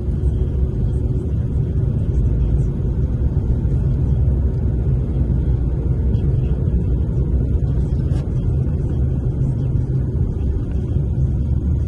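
Steady low rumble of road and engine noise inside a moving taxi's cabin.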